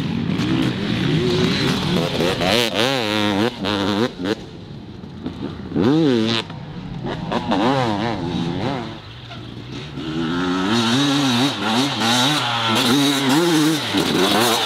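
Two-stroke enduro dirt bike engines revving hard, the pitch rising and falling rapidly with the throttle, with one loud surge about six seconds in and quieter dips in between.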